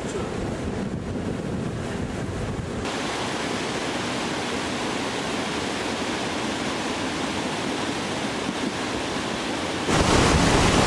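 Steady rushing roar of a large glacial meltwater river, mixed with wind noise on the microphone. Near the end the rush becomes suddenly louder and fuller.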